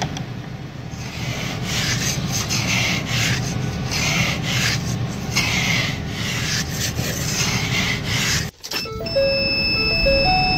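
Car windshield wiper blades scraping across a frosted windshield, a rasping stroke about every second and a bit, over a low steady hum. Near the end the scraping breaks off and a steady high electronic tone sounds, with a few short lower notes.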